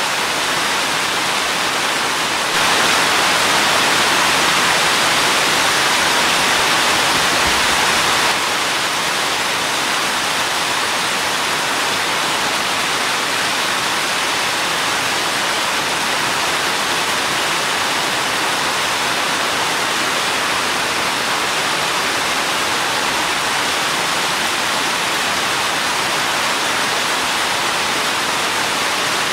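Rain falling with a steady, even hiss. It turns louder about two and a half seconds in and drops back abruptly about six seconds later.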